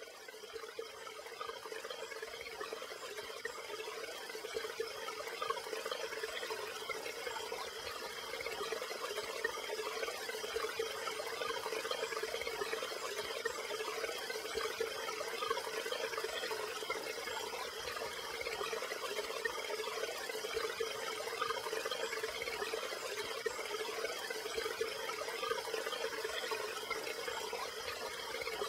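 Steady trickling and splashing of running water with a low steady hum underneath, typical of an aquarium filter's outflow. It fades up over the first few seconds, then holds.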